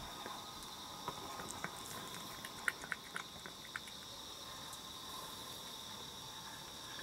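Steady high-pitched insect chirring throughout, with a short cluster of small sharp clicks about halfway through.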